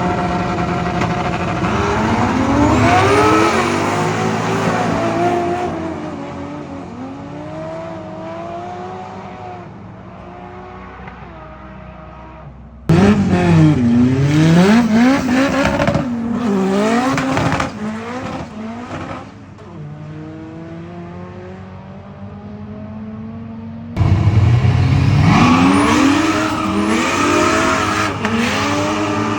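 High-performance street car engines accelerating hard at full throttle. Their pitch rises and drops sharply again and again as they change up through the gears, in several separate runs that cut in abruptly about 13 and 24 seconds in.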